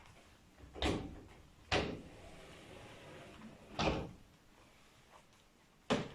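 ENJO multitool window wiper drawn over window glass in four short strokes, each a quick swish starting sharply and fading.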